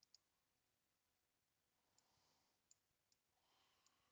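Near silence broken by a few faint, sharp computer mouse clicks.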